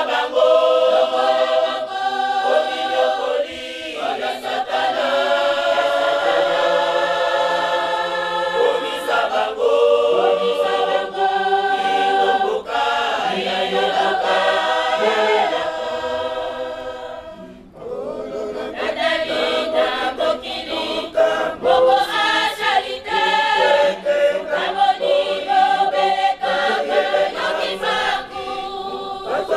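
Mixed choir of men and women singing a hymn unaccompanied, several voice parts at once under a conductor. The singing breaks off briefly a little past halfway, then starts again.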